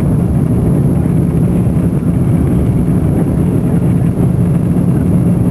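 Steady cabin noise inside a Lufthansa Airbus A340-300 airliner in flight on approach: a deep, even rumble of its four CFM56 turbofan engines and the rushing air, with a thin steady high whine above it.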